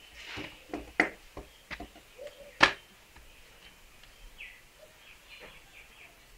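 Sharp clicks and taps from a plastic miniature circuit breaker being handled and wired, two of them loud, about a second in and a little before the middle. Faint bird chirps in the background in the second half.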